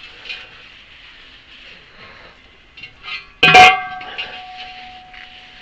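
A few light ticks, then a sharp metallic clank about three and a half seconds in that keeps ringing and fades over about two seconds, like a metal object struck or set down on metal.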